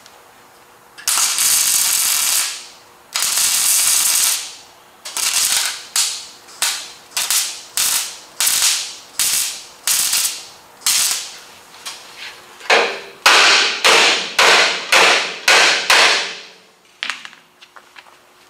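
MIG welder tack- and stitch-welding a replacement front apron onto a car's unibody frame rail. Two longer weld runs of about a second each, then a quick series of short bursts, about two a second, each cutting off abruptly, with a few faint clicks near the end.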